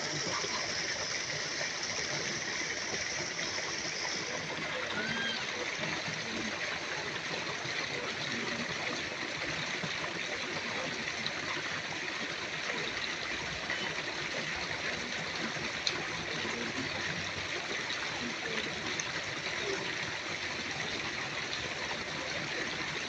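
A small stream running steadily over rocks.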